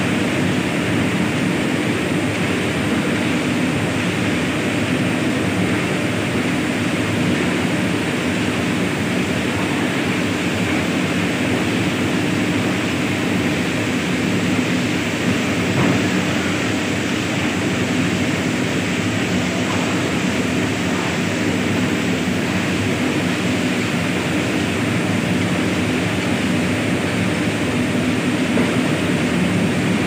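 Lead rotary furnace plant running with its burner firing: a loud, steady, unchanging machine noise with a low hum.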